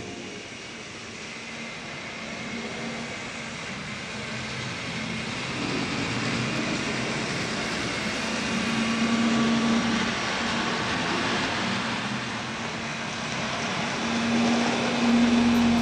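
N scale model train running on the track: a steady rattle of small wheels with a low electric-motor hum that swells twice as the train passes close.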